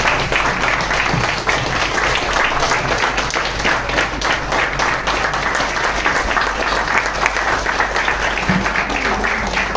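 Audience applauding: many hands clapping without a break.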